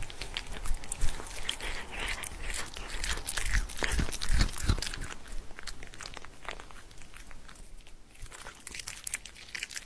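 Two cats chewing and biting on a strip of raw meat from either end: a continuous run of quick, irregular chewing clicks.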